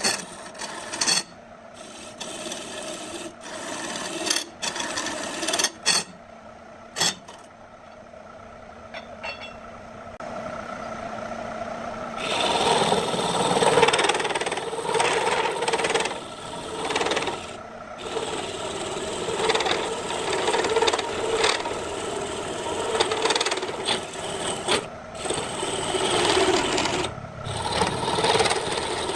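Hand gouge cutting into a spinning wooden blank on a lathe, a rasping scrape in short separate strokes at first, then near-continuous heavier cutting from about twelve seconds in. A faint steady hum from the lathe's electric motor runs underneath.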